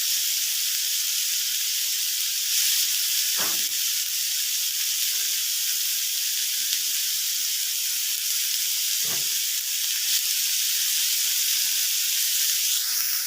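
Chicken tikka and capsicum on skewers frying in a little oil in a frying pan on medium heat: a steady sizzle.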